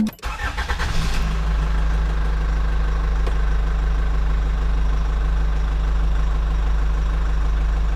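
Engine idling steadily with a deep, even hum that settles in about a second in.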